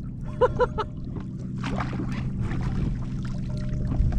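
Water sloshing and lapping against a plastic fishing kayak's hull, with scattered knocks from handling gear aboard, over a steady low hum. A quick run of four short pitched blips sounds about half a second in.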